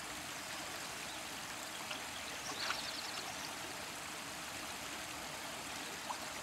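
Steady rush of a river's current around a wading angler, with a faint splash a little past two and a half seconds in from a hooked trout thrashing at the surface.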